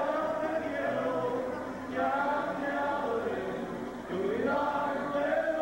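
Man singing into a microphone with live guitar accompaniment, in long held phrases that each begin with an upward slide, a new phrase about every two seconds.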